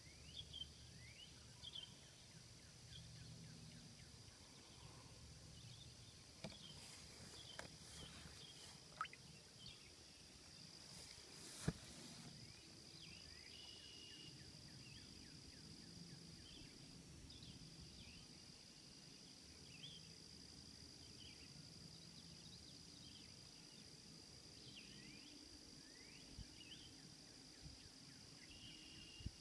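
Faint outdoor ambience: a steady high-pitched insect drone, with scattered short chirps and one sharp click about twelve seconds in.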